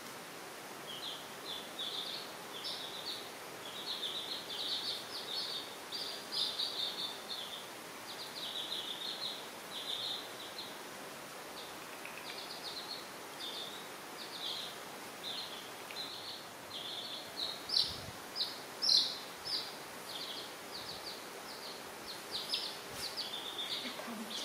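Several baby chicks peeping: short, high chirps coming a few at a time, one after another, throughout. Two brief, louder clicks come about three quarters of the way through.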